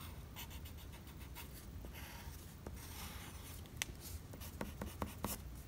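Pencil point scratching on paper in short drawing strokes, with a few sharp clicks in the second half.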